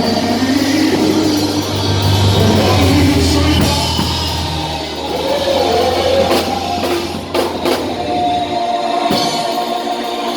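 Music with singing over a held bass note and drums, with a few sharp drum hits about seven seconds in.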